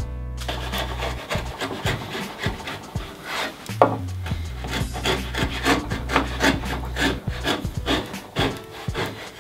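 Small hand plane taking repeated short scraping strokes along the end of a wooden shelf, about two a second, cutting its barefaced tongue. Background music with a steady beat plays underneath.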